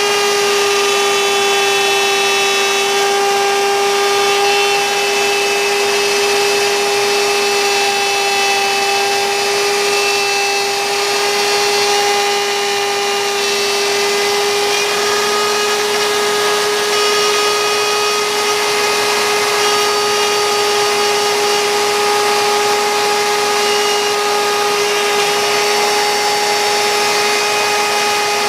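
CNC router spindle running at one steady high pitch while its bit cuts wood, with a hiss of cutting noise under the whine.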